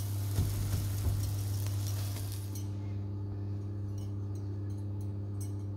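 Naan dough sizzling on a hot tawa over a steady low hum, with a few soft knocks near the start. The sizzling stops abruptly about two and a half seconds in, leaving the hum and a few faint light clicks.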